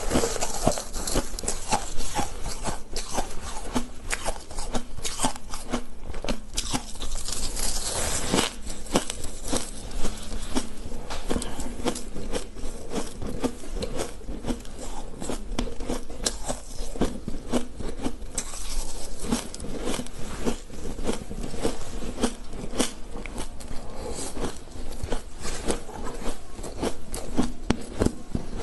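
A person biting and chewing mouthfuls of fluffy, snow-like ice close to a clip-on microphone: dense, continuous crunching with many sharp crackles.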